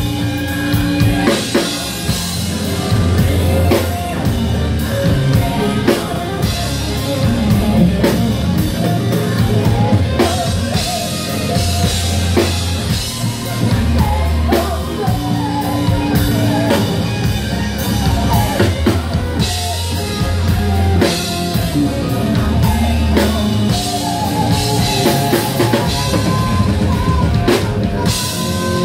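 Live electropop band playing: drum kit, electric guitar and keyboards, with a lead singer's vocals over the top.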